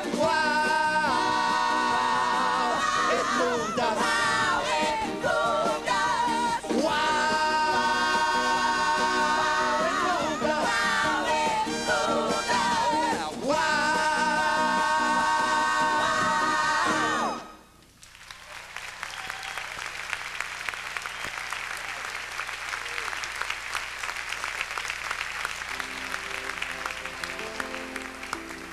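Stage cast singing long held notes together with a big band, ending the number about two-thirds of the way through. The audience then applauds, with the band starting up faintly near the end.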